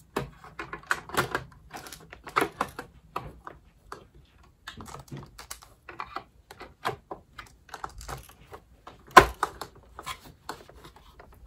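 Irregular plastic clicks and taps as the cover of a Shark Rotator vacuum's floor head is fitted and pressed into place, with one sharper knock about nine seconds in.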